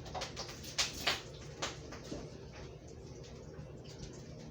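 Hot grease popping in a pancake skillet: scattered sharp pops, most of them in the first two seconds, over a steady low sizzle. The popping comes from the pan being too hot; low heat keeps it down.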